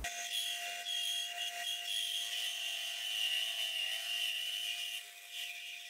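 Sieg C3 mini lathe turning a pulley blank while a brazed carbide tool cuts a groove in it: a steady machining whine with a high ringing tone, which fades about five seconds in. The spindle speed is a little too fast for the roughly ground carbide.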